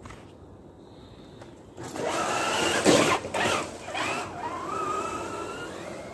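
Traxxas TRX-4 RC crawler driving through deep snow: its electric motor and gears whine, the pitch rising and falling with the throttle, over the noise of the tires churning snow. It is loudest from about two to four seconds in, then fades as the truck moves away.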